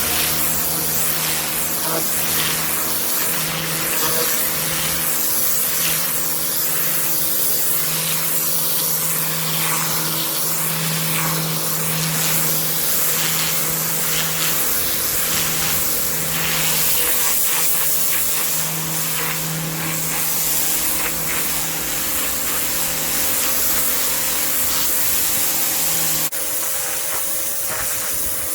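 Kärcher K7 pressure washer running: the steady hum of its pump motor under the loud hiss of the high-pressure water jet spraying onto patio paving. The sound shifts slightly near the end.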